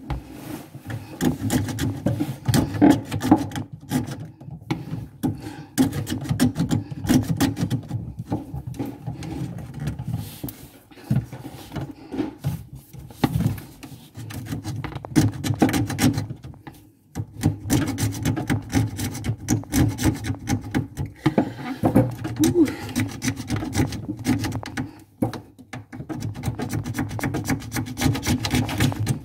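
A hand tool scraped back and forth along the edge of a cupboard in quick repeated strokes, stopping briefly a few times.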